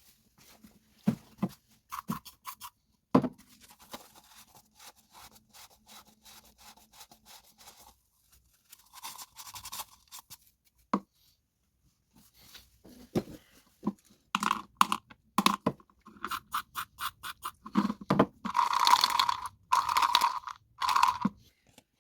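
Scraping and scrubbing by hand in short bursts of strokes, with a few sharp knocks. Faint at first, the strokes grow louder and quicker after about 14 seconds.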